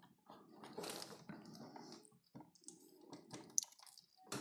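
Plastic dinosaur and snake figures being handled and pressed together by hand: faint, irregular small clicks and rustles as the Titanoboa figure is worked around the Spinosaurus figure.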